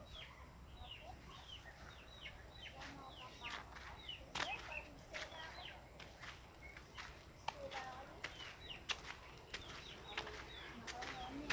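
Chickens calling: many short, high, falling peeps repeating throughout, with a few lower calls and several sharp clicks.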